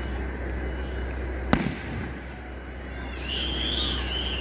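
Fireworks going off: a sharp bang about a second and a half in, then a wavering high whistle for about a second and a half, ending in another bang at the end.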